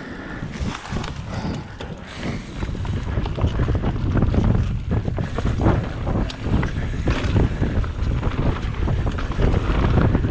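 Wind buffeting the action camera's microphone as a mountain bike rolls down a dirt trail, with its tyres running over dirt and dry leaves and the bike knocking and rattling over bumps. It gets louder from about three seconds in as the bike picks up speed.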